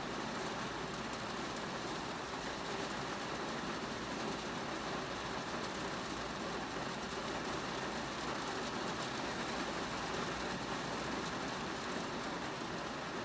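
Rain on a car, a steady, even noise that never lets up.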